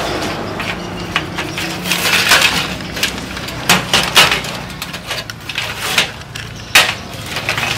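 Clanking and rattling of parts being pulled out of a rusty sheet-steel amplifier chassis: circuit boards, wiring and a power transformer knocking against the metal. Irregular knocks, with the sharpest ones about four and seven seconds in.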